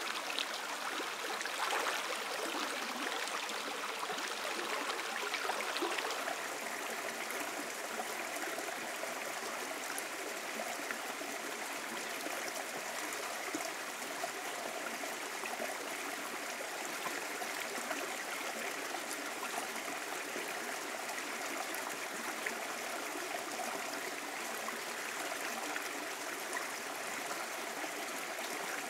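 Shallow rocky stream running, a steady sound of flowing water. In the first six seconds there are a few sharper splashes from feet wading through the water.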